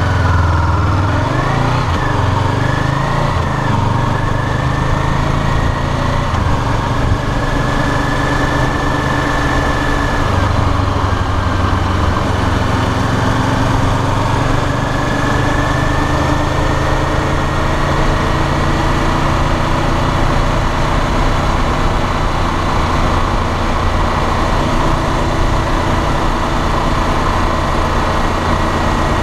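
Honda CBR500R's parallel-twin engine pulling away from a standstill, its pitch rising and dropping back as it shifts up through the first gears in the opening seconds. It then runs steadily at town speed, with wind rushing over the bike.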